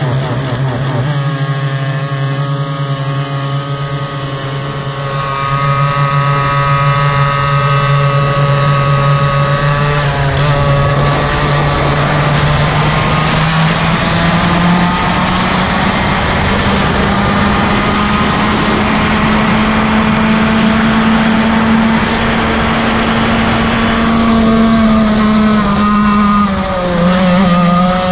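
Yamaha KT100 kart engine, a 100cc single-cylinder two-stroke, running continuously under load. Its pitch climbs slowly over about twenty seconds, then dips briefly near the end before picking up again.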